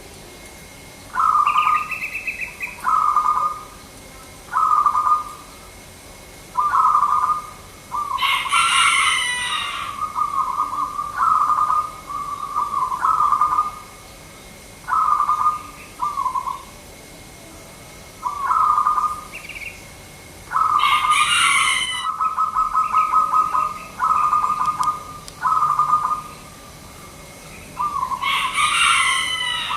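Zebra dove (perkutut) cooing: a string of short, trilled coos, about one every one to two seconds, each a quick run of notes. Three times, a louder, shriller call from another bird cuts in over them.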